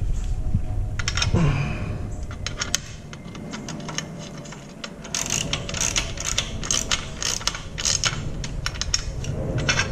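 Small hand socket ratchet clicking as it runs a bolt into a crash-bar engine guard's mounting bracket, not yet fully tightened. The first seconds hold handling noise, and from about halfway through come quick runs of ratchet clicks.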